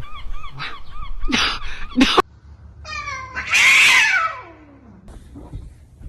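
A cat meowing: a quick run of short chirping meows, a sharp knock about two seconds in, then one long, loud meow that falls in pitch.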